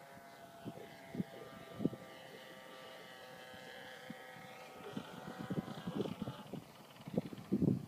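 Radio-controlled model airplane's motor and propeller buzzing in flight, a steady high hum whose pitch drifts slightly as the plane passes, fading after about five seconds. Low thumps pick up near the end.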